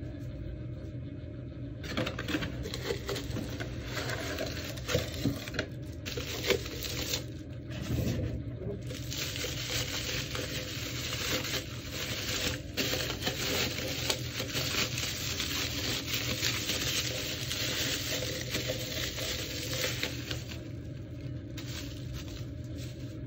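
Bubble wrap crinkling and rustling as a milk pitcher is lifted out of a cardboard box and unwrapped, with many small clicks and taps; the handling starts about two seconds in and dies down near the end.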